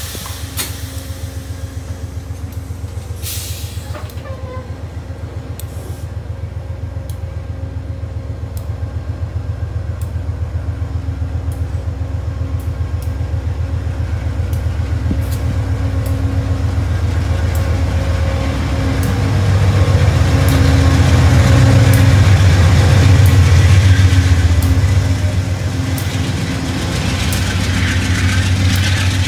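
Passenger train moving at a station: a diesel locomotive's low, pulsing engine rumble. It grows louder to a peak about two-thirds of the way through, then eases a little near the end.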